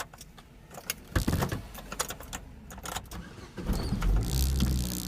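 Keys jangling and clicking, then a car engine starting a little past halfway through and settling into a steady idle.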